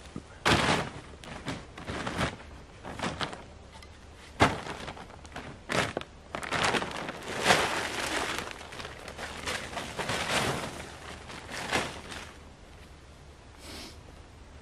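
Wooden poles and planks knocking as they are put down, a few sharp knocks with the loudest about four seconds in, then a plastic tarp crackling as it is flapped out and pulled over a pile, with footsteps.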